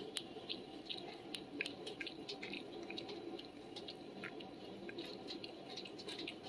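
Cat licking food off a plastic surface: a faint run of small wet tongue clicks, several a second and irregular.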